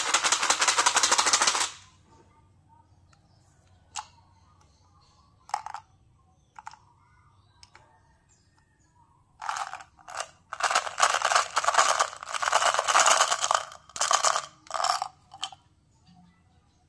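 Small hard round candies rattling inside a plastic candy box as it is shaken, stopping after about a second and a half. A few sharp plastic clicks follow as the box is opened, then a run of rattling bursts as the candies are shaken out.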